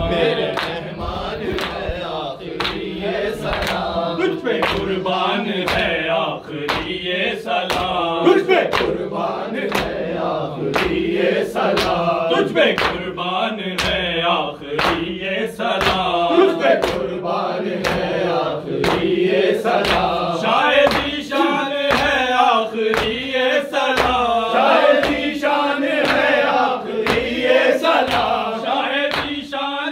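A group of men chanting a Shia nauha lament in unison, over sharp rhythmic chest-beating (matam) slaps about once a second.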